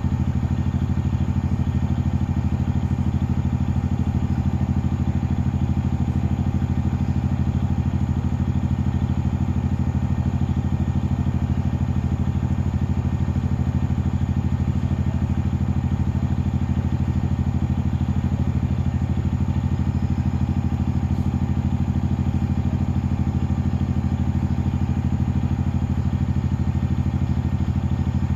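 A boat engine running steadily at constant speed, a loud, even low drone that does not change.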